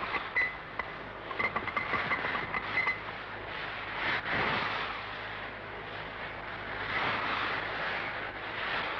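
A yacht's deck winch being cranked, its pawls clicking quickly for about three seconds. Then the rush of wind and breaking sea against the hull, rising and falling in surges.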